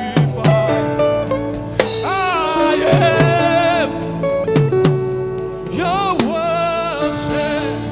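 Live gospel worship music: a man sings held notes with strong vibrato into a microphone over band accompaniment with sustained chords and regular drum hits.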